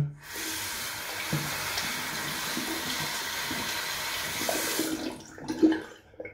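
Bathroom sink tap running as hands are washed under it, pomade being rinsed off, a steady splash that stops about five seconds in. A short thump follows just before the end.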